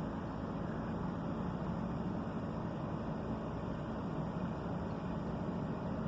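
An engine running steadily, with a low, even hum that does not change.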